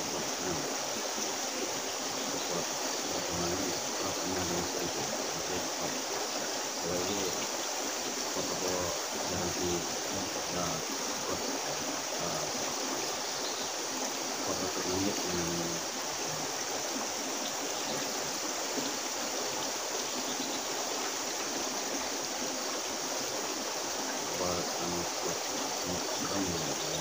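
Steady rush of river water running over rocks into a pool.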